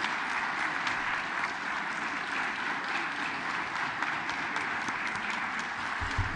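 Steady applause from a large audience, many people clapping at once.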